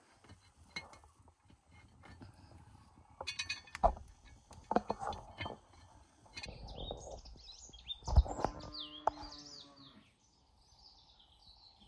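Birds chirping in high, wavering calls through the second half, with a short pitched animal call about eight seconds in. Scattered knocks and clicks come earlier on.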